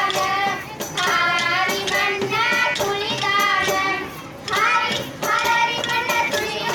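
A song with high, child-like voices singing over music for a stick dance, with a brief break between sung phrases about four seconds in.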